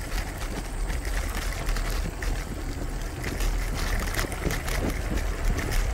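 Wind buffeting the microphone and the rumble of bicycle tyres on a long, fast downhill, with scattered small knocks and rattles from the bike on the road.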